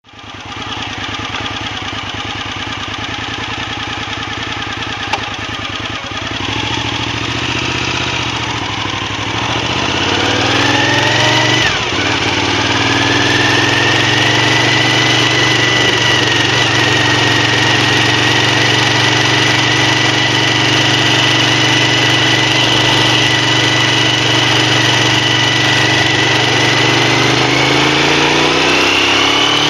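Suzuki TL1000S V-twin motorcycle engine running steadily, then picking up speed about ten seconds in, with a short break in the pitch around twelve seconds like a gear change, and then running at a steady speed. Its pitch starts rising again near the end.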